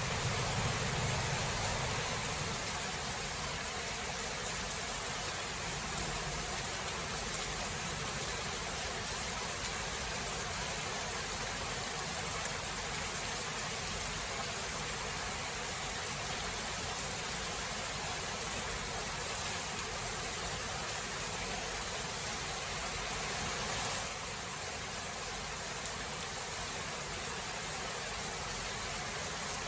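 Steady, even rain hiss, with the tail of a low thunder rumble dying away in the first couple of seconds. The rain level drops slightly about 24 seconds in.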